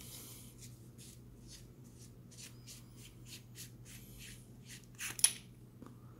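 Rofis MR70 flashlight's tail cap being unscrewed by hand: a run of short scratchy rasps from the threads, about three a second, then a sharp click about five seconds in as the cap comes free.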